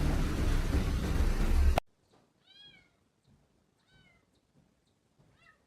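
A loud rushing noise that cuts off suddenly about two seconds in, then a cat meowing three times, short and quiet, each call rising and falling in pitch.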